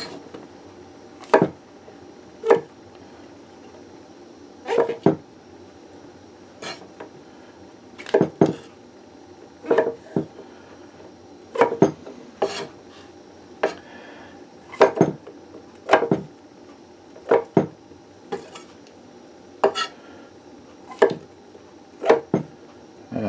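Kitchen knife blade knocking on a wooden butcher-block cutting board while quartering cremini mushrooms: a sharp knock about every second, irregular and sometimes in quick pairs.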